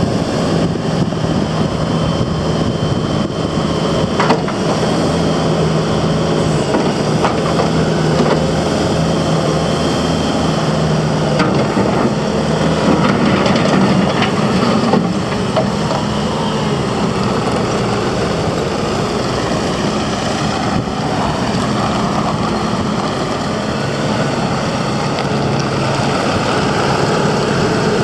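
Bobcat T770 skid steer loader's diesel engine running steadily, with a faint whine and a few sharp knocks.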